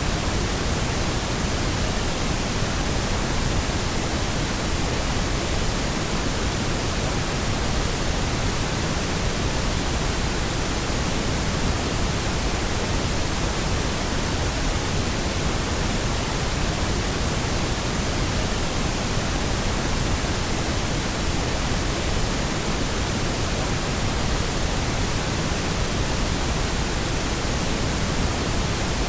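Steady pink noise: an even, unchanging hiss across all pitches.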